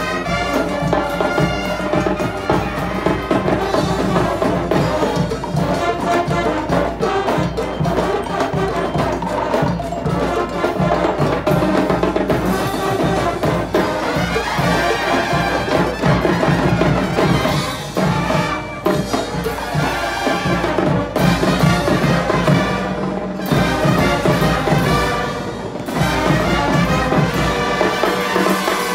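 Student marching band playing brass and drums together, the brass carrying the tune over a steady beat of drum strokes.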